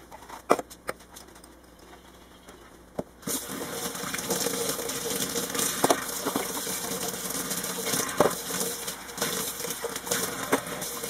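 Removable stainless-steel parts of an electric moka pot handled and scrubbed with a sponge, with a few light knocks, then a kitchen tap turned on about three seconds in. Water runs steadily over the parts into a stainless-steel sink, with occasional clinks as they are rinsed.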